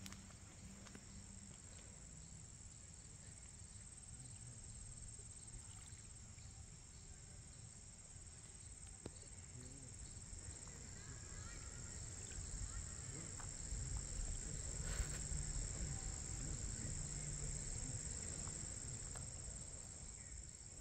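Insect chorus trilling steadily at a high pitch, with low wind rumble on the microphone that grows louder past the middle.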